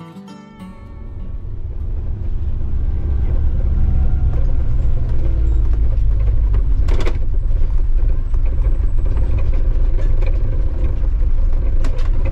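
Low, steady rumble of a 1994 VAS motorhome on the move, engine and road noise, swelling in over the first two seconds. A single sharp knock sounds about seven seconds in, with a few lighter clicks near the end.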